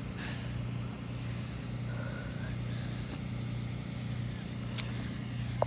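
Steady low hum of a running motor vehicle, with two sharp clicks near the end.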